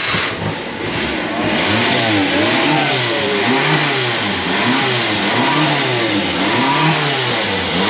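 Subaru Sambar kei truck engine just caught and running, with the throttle blipped about once a second so the revs rise and fall. It is being given gas to keep it alive after a Seafoam treatment.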